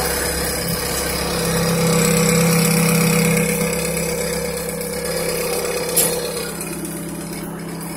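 BMW 530e's turbocharged four-cylinder engine idling through a muffler-deleted exhaust, a steady hum that swells a little about two seconds in and then eases. A single sharp knock about six seconds in.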